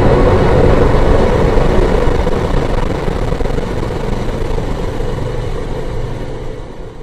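A steady, loud, engine-like rumble that fades out over the last couple of seconds.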